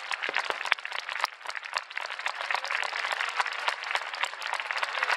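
A large crowd applauding, a dense steady patter of many hands clapping, as a fireworks display ends.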